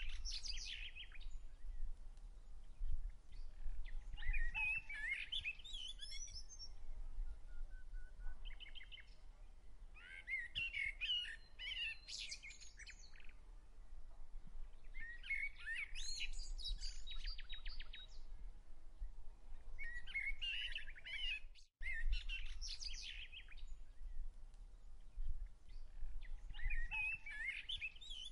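A songbird singing short, fast, varied chirping phrases, one every few seconds, over a steady low rumble.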